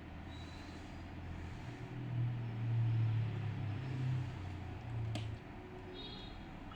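Low rumble of a passing motor vehicle, building to its loudest midway and dying away about five seconds in, with a single sharp click just before it stops.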